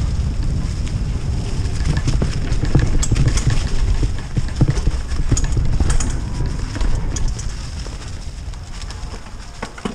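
Mountain bike riding fast down a leaf-covered dirt trail: tyres rolling over leaves and dirt under a low rumble, with many quick clacks and rattles from the bike over bumps, easing off near the end.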